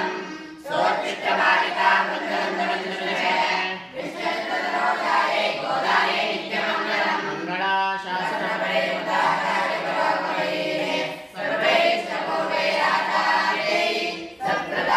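A group of boys singing a devotional hymn in unison during an aarti (camphor-flame offering), a chorus of young voices with brief dips for breath every few seconds.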